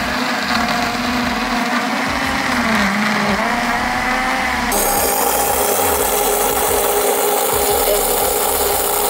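Electric countertop blender running at speed, its motor whirring as it churns milk, ice cream and Oreo cookies into a thick milkshake. The pitch wavers slightly at first. About halfway through, the sound switches abruptly to a brighter, hissier and steadier whir.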